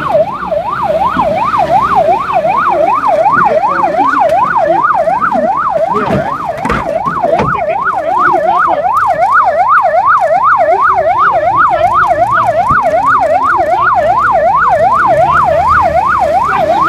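Police vehicle siren in a fast yelp, sweeping rapidly up and down about three times a second and loud throughout, with a few knocks about six and seven seconds in.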